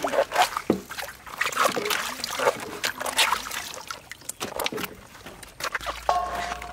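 Hands splashing and sloshing in a basin of water while washing banana blossoms and cucumbers, with water trickling off the vegetables as they are lifted out.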